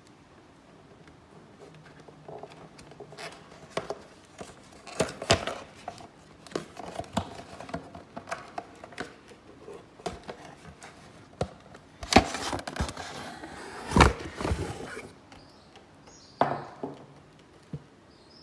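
Bottles and a cardboard champagne gift box being handled on a kitchen counter: scattered light knocks and clicks, with a louder stretch of scraping and rustling about two-thirds of the way through.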